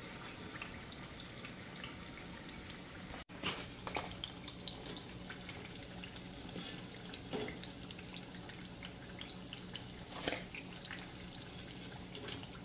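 Hot frying oil sizzling and crackling around smashed green plantains in their second fry: a steady hiss full of small pops, with a few louder clicks of a utensil.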